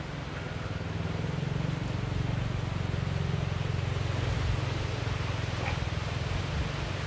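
A low, steady rumble that swells over the first couple of seconds and eases off near the end.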